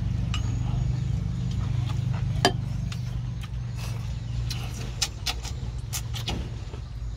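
A boat's engine running with a steady low hum, with scattered light clicks and clinks of chopsticks and bowls.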